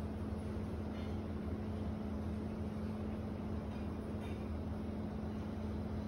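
Steady ambient hum of a city apartment alley: an even low mechanical drone with a constant low tone over a soft rushing background. Two faint high-pitched sounds come through, about a second in and again just after four seconds.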